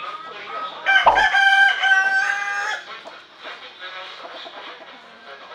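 Rooster crowing once, a loud steady-pitched call of about two seconds that starts about a second in.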